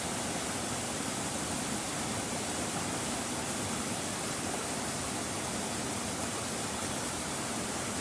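Steady outdoor rushing noise with no distinct events, like flowing water or wind.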